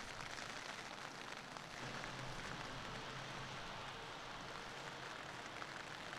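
Faint, steady background hiss with no distinct events, and a faint low hum in the middle stretch.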